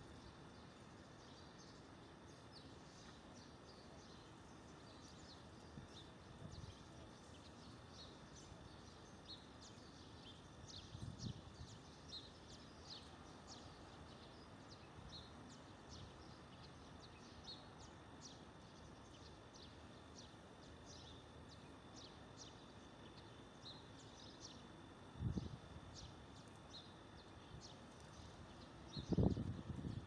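Faint outdoor ambience with many short, high chirps from small birds in the background throughout, and a few low thumps about ten seconds in, about twenty-five seconds in and near the end.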